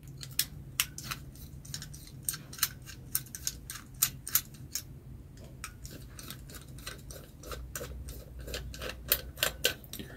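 Screwdriver turning out the screws on a Honda CG125-type motorcycle carburetor to free the float bowl: a run of sharp, irregular metallic clicks, several a second.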